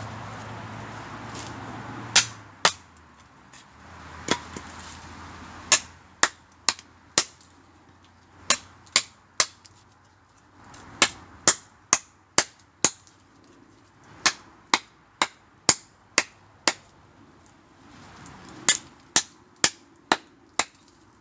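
An irregular series of sharp, loud cracks or bangs, about one or two a second, with brief gaps in between.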